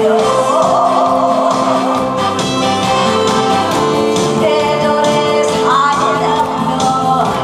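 A woman singing into a microphone over musical accompaniment with a steady beat.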